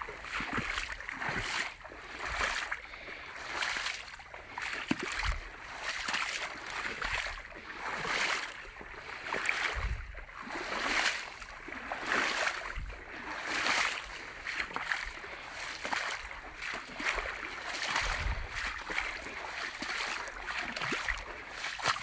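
Footsteps wading through shallow creek water and wet sand, sloshing and splashing about once a second.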